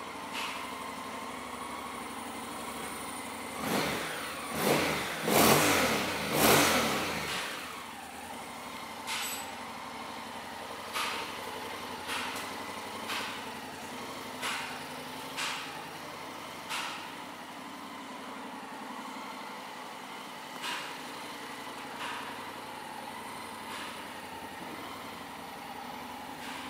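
Honda NC750 parallel-twin engine idling, revved four times in quick succession about four seconds in, then given a string of short throttle blips every second or two.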